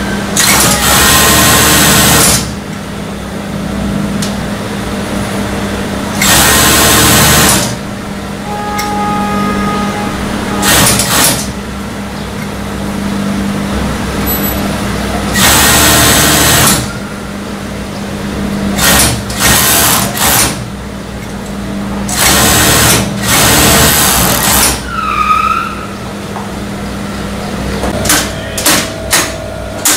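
Industrial overlock (serger) sewing machine stitching in runs of one to two seconds, with its motor humming steadily in between. Near the end come several quick, short stitching bursts.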